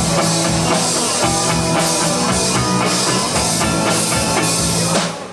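Live rock band playing an instrumental passage on drum kit and guitar, with a brief drop-out just before the end.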